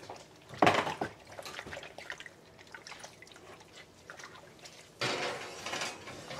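Kitchen handling sounds as an oven door is opened and a glass baking dish is set into the oven: two short noisy bursts, one just under a second in and one near the end. Light clinks and water dripping at the sink run underneath.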